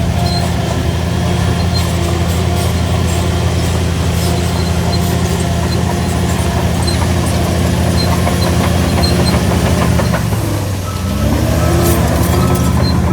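Diesel engine of a Shantui DH17C3 LGP bulldozer running steadily while pushing soil. About ten seconds in, the engine note drops briefly and then climbs back up.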